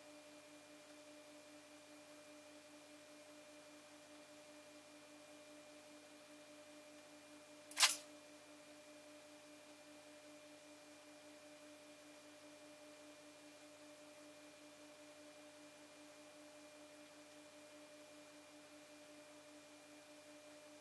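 Faint steady electrical hum with hiss, broken once by a single sharp click about eight seconds in.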